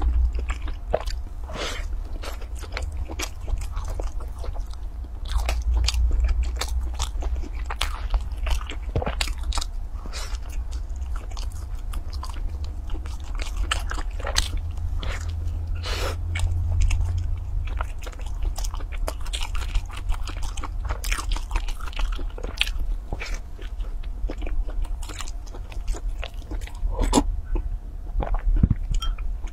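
Close-miked biting and chewing of crispy food: a dense run of irregular crunches and small crackly clicks, with a steady low hum underneath.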